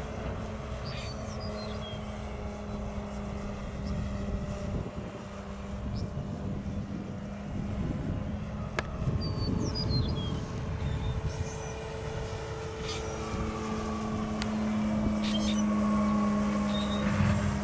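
Brushless electric motor (Cobra 5340/16) turning the propeller of a large radio-controlled Ercoupe model in flight: a steady propeller hum that grows louder in the last few seconds as the plane comes closer.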